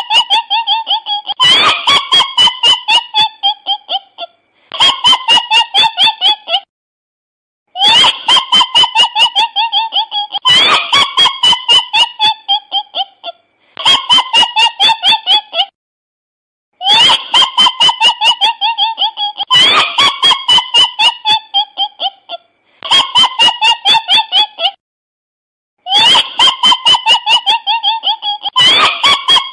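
A cackling sound effect: bursts of rapid, high-pitched pulses that fall in pitch through each burst, repeated about ten times in a loop with short gaps between.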